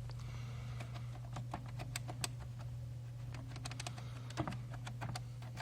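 Keys of an old computer keyboard pressed in an irregular run of clicks, tested by hand to see whether they register, over a steady low hum.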